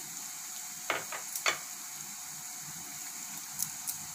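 Chopped onion, ginger and garlic frying in oil in a cast-iron kadai: a steady sizzle, with a few sharp pops about a second in and again near the end.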